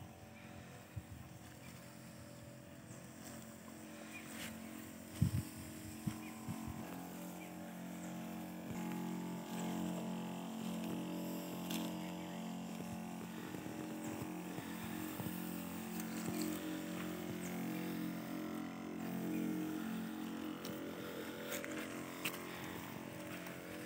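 Backpack crop sprayer's pump running with a steady hum while the wand sprays, growing louder about seven seconds in. A couple of sharp knocks sound around five and six seconds in.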